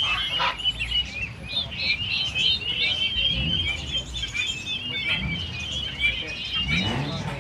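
Many small birds chirping and twittering together: dense, overlapping high chirps without a break.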